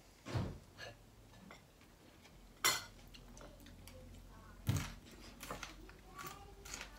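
Cutlery knocking and clinking against plates and bowls during a meal: a few separate sharp clinks, the loudest about two and a half seconds in and another near five seconds.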